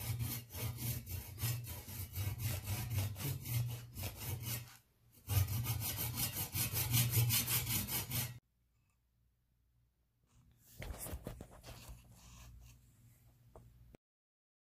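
Small hand saw sawing through a hammer's wooden handle at the head, in quick, even back-and-forth strokes, with a short pause before it resumes. After a silent gap, a fainter scraping follows near the end.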